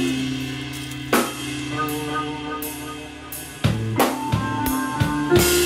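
Background music: drum hits over held bass and melody notes.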